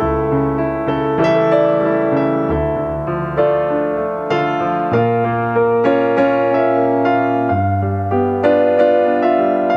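Background piano music, notes struck about once a second over sustained bass notes.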